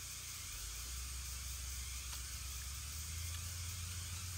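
Steady background hiss with a low hum underneath that grows a little stronger about half a second in; no distinct event, only a faint tick around the middle.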